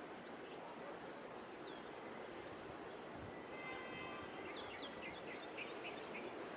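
Steady outdoor background noise with small birds chirping: a few scattered chirps in the first half, a brief thin whistle-like tone just past the middle, then a quick run of chirps.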